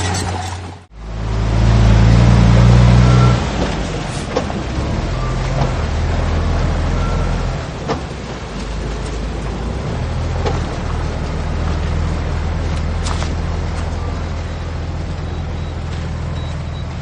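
Heavy diesel engine of earthmoving machinery running. It cuts out briefly about a second in, comes back loudest and deepest for the next couple of seconds, then settles to a steadier running note with a few light knocks.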